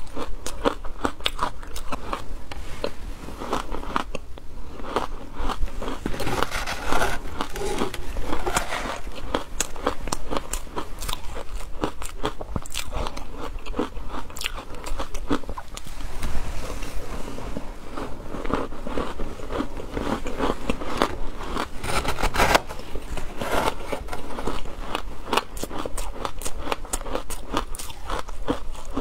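A person biting and chewing shaved ice coated in milk powder, with dense crunching and crackling that keeps going without pause.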